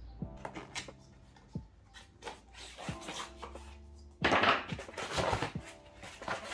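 Lofi background music with a steady beat, over rubbing and scraping as a knobby mountain-bike tyre is worked onto the wheel rim by hand, louder from about four seconds in.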